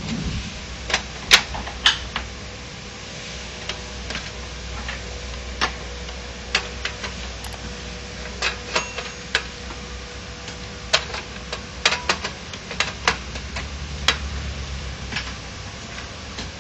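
Plastic and metal parts of an opened HP LaserJet 1010 printer being handled, including its laser scanner unit being lifted and set back into the chassis. They make about twenty sharp, irregular clicks and knocks.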